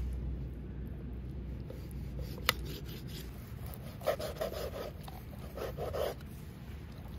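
Large kitchen knife sawing through a raw boneless chicken breast on a wooden cutting board: two short bouts of rasping strokes in the second half. A single sharp click comes about two and a half seconds in.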